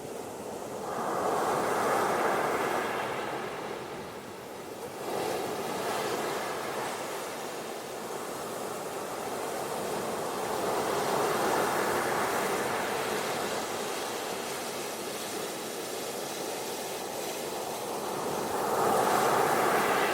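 Ocean surf washing up a beach, the rush of water swelling and fading about four times as successive waves come in.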